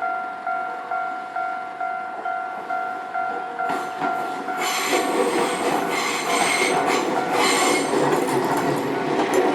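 Japanese level-crossing warning bell dinging about twice a second, then a train passing over the crossing from about four seconds in, wheels squealing.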